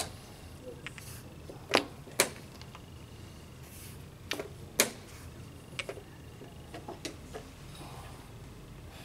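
Wooden chess pieces set down on a wooden board and chess clock buttons pressed in quick turns during a blitz game: a string of sharp knocks and clicks, the loudest pair about two seconds in and another near five seconds in.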